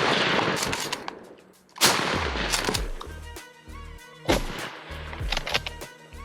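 Music with a heavy boom about every two and a half seconds over a pulsing bass line.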